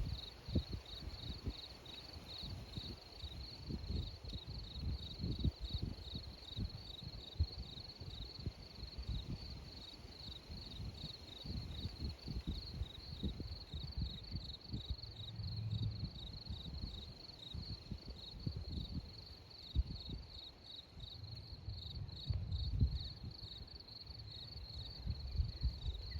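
Crickets chirping in a steady, even pulsing rhythm, with wind buffeting the microphone in irregular low gusts.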